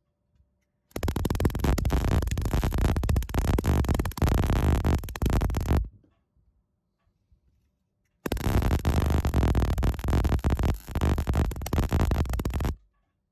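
MIG welder arc crackling and spitting in two runs of about five and four and a half seconds, with a pause of about two and a half seconds between.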